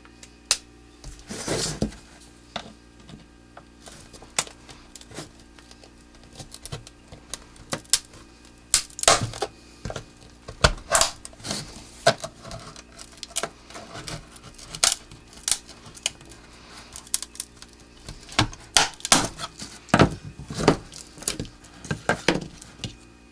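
Flat-blade screwdriver prying apart the welded plastic case of a portable GFCI: irregular sharp clicks and cracks of plastic as the seam gives way, loudest in clusters about halfway through and again towards the end.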